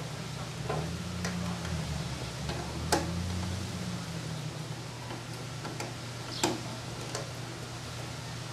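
Small clicks and taps of wire jumpers being fitted to the terminal screws on the back of a garage door opener, scattered through, with two sharper clicks about three and six and a half seconds in, over a steady low hum.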